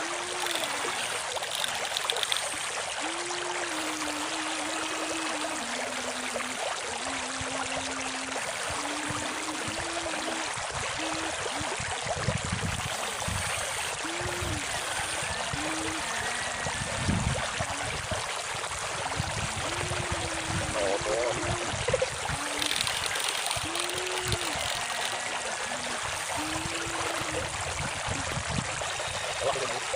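Flowing river water rushing steadily, over which a small electric motor of an RC excavator whines, its pitch dipping and rising again and again as it works.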